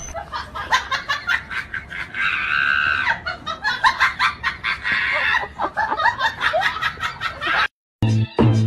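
A person laughing hard, with rapid repeated catches of breath and shrill stretches, cutting off abruptly near the end.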